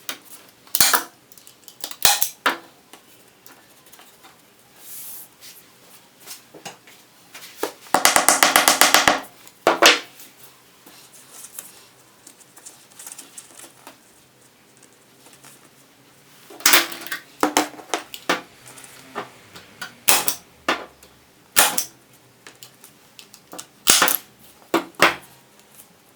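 Sharp snaps and clicks from hand work on a chair seat, coming singly and in short clusters. About eight seconds in there is a brief rapid rasping buzz lasting about a second.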